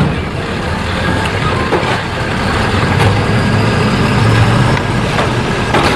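Automated side-loader garbage truck running on natural gas: its engine runs steadily while its arm lifts a wheeled cart to empty it, with a couple of knocks from the cart.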